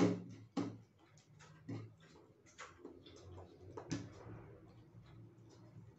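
Quiet eating sounds at a table: chewing, with light, irregular clicks of hands and utensils on plates and crockery, about one a second.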